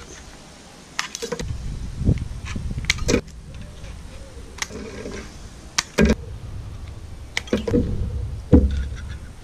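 Scissors snipping the excess tails off stainless steel cable ties: about a dozen sharp metallic clicks, irregularly spaced, some in quick pairs.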